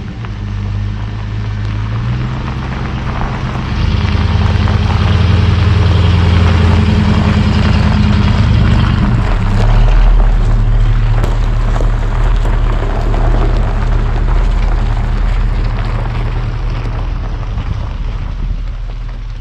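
Motorhome with a 7.4-litre Chevrolet 454 big-block V8 pulling away and driving past: the engine's low rumble rises about four seconds in, is loudest as it passes close by, then fades as it drives off.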